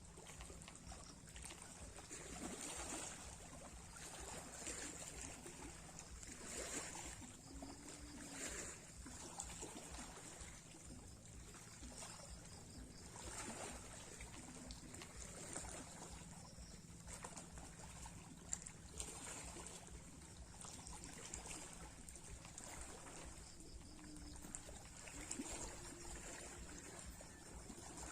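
Sea waves lapping, a faint wash of water with a soft rush every few seconds.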